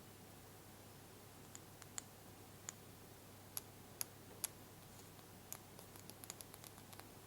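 Faint, scattered light clicks of small toy pieces being handled and set down, a few sharper ones in the middle and a quicker run of soft ticks near the end.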